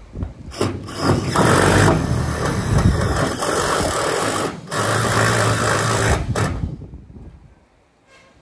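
Power drill driving a self-drilling screw into metal roof sheeting, the motor running hard in two stretches with a short break about halfway, then stopping near the end.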